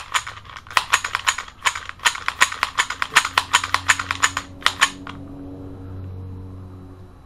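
Springfield Armory XD40 pistol's slide worked back and forth on the frame rails to spread fresh gun grease: a rapid run of sharp metallic clicks, several a second, that stops about five seconds in. A faint low hum follows.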